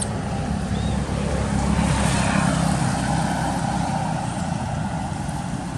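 A motor vehicle's engine passing on the road: a steady low hum that swells about two seconds in and then slowly fades.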